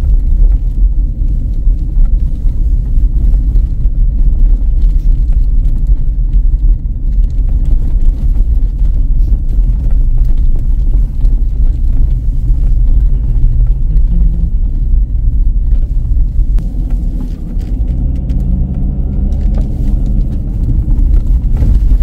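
Ford Endeavour SUV driving, heard from inside the cabin: a steady low rumble of engine and tyres on the road. The engine hum becomes more distinct for a few seconds near the end.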